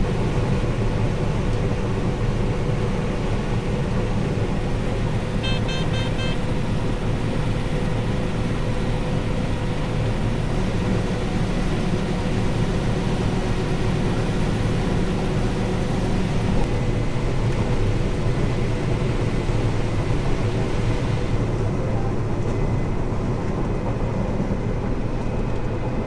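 Combine harvester running while picking corn, heard from inside the cab as a steady engine and machine drone. A short run of beeps comes about six seconds in, and the higher part of the noise drops away in the last third.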